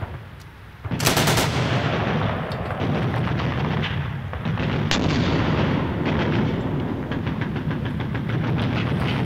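Heavy, continuous gunfire that starts suddenly about a second in: rapid shots, with automatic fire among them, over a steady low rumble.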